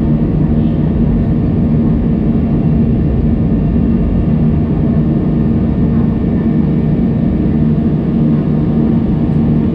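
Airbus A320's jet engines during the climb after takeoff, heard from inside the cabin over the wing: a loud, steady drone with a constant low hum.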